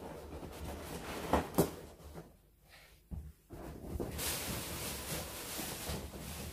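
Inflated latex balloons being handled: two sharp taps about a second and a half in, then a hissing rub of balloons against each other from about four seconds in as a cluster is picked up.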